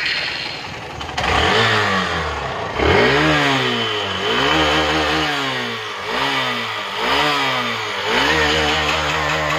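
Hero Glamour motorcycle's single-cylinder engine revved repeatedly by twisting the throttle: about six revs, each climbing sharply in pitch and dropping back between blips.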